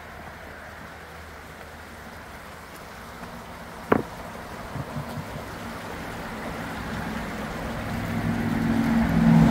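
Steady rushing of a small stream, with a sharp click about four seconds in. Over the last couple of seconds a motor vehicle approaches on the road, its engine growing steadily louder.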